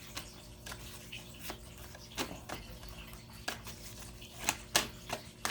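Tarot cards being handled: irregular light clicks and taps of cards slid and laid down, with a few sharper snaps about four and a half seconds in.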